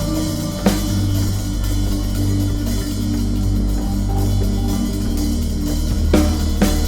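Drum kit played over an ambient soundscape: a held low bass drone and sustained pitched tones, with a few sharp drum and cymbal strikes about a second in and near the end.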